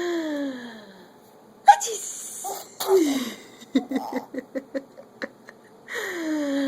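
A woman sneezing several times, each sneeze a hissing burst with a falling voice, done to make a baby laugh. Between the sneezes, about halfway through, there is a quick rhythmic run of laughter.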